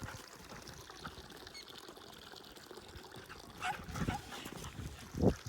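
A Siberian husky and a puppy playing, with a few short sounds about four seconds in and one brief, loud, low sound near the end.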